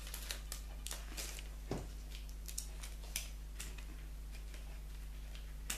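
Faint rustling of wrapping and scattered small clicks as hands pick at a tightly knotted gift package, over a steady low hum.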